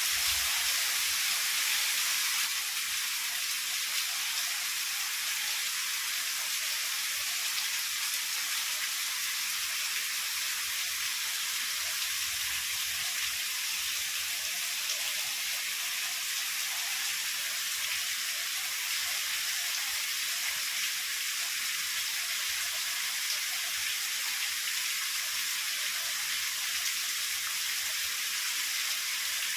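Heavy rain falling steadily, a dense even hiss that eases slightly about two seconds in.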